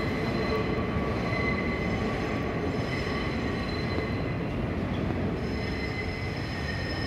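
New York City subway train (the 3 express) approaching through an underground station: a steady rumble of wheels on rail with thin, high ringing tones over it that shift in pitch about two thirds of the way through.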